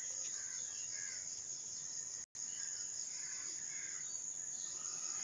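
Steady high-pitched drone of insects, with faint bird calls here and there; the sound cuts out for an instant a little over two seconds in.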